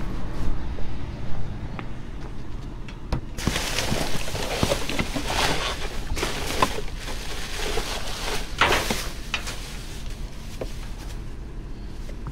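Clear plastic trash bags rustling and crinkling as they are handled and pushed around, a dense crackling that starts about three seconds in and dies down about nine seconds in, over a steady low rumble.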